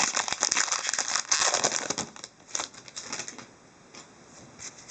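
Hockey card pack wrapper crinkling and cards rustling as a pack is opened and handled: a fast run of crackles that thins out about two seconds in and stops a little later.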